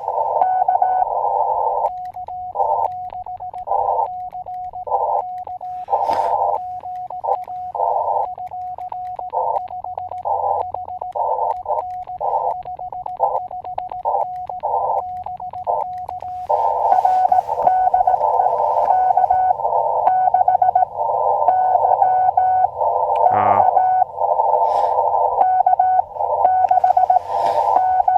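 Elecraft KX2 transceiver's CW audio: Morse code tones keyed in a quick run of short and long elements at one steady pitch. Before and after that run comes continuous receiver hiss with signals in it, heard through the narrow CW filter.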